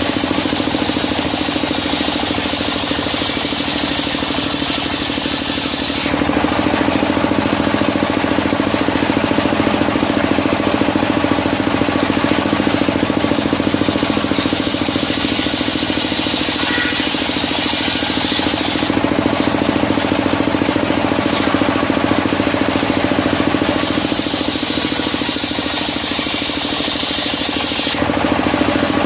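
Engine-driven circular sawmill running steadily, with three stretches of higher hiss, each a few seconds long, as the blade cuts through medang kuning logs.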